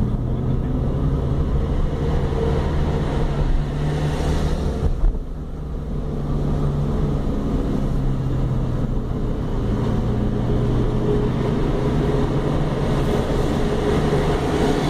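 Car engine and tyre noise heard from inside the cabin while climbing a hill road, a steady hum. About four seconds in there is a brief swell, followed by a short dip in loudness, before the hum steadies again.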